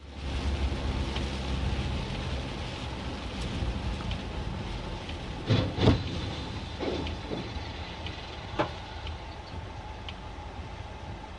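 Car driving on a wet road heard from inside the cabin: a steady engine and tyre rumble with spray. About six seconds in comes a loud crash as a box truck collides in the oncoming lane, followed by a few smaller knocks.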